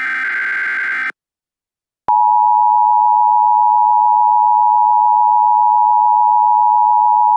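An Emergency Alert System SAME header data burst ends about a second in. After a second of silence, the EAS two-tone attention signal (853 and 960 Hz together) starts and holds steady and loud.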